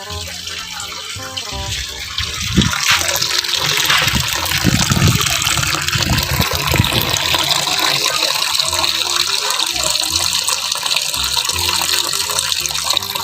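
Water running from a tap or hose into a washing machine's tub as it is filled for a wash, a steady pouring and splashing that gets louder about two and a half seconds in.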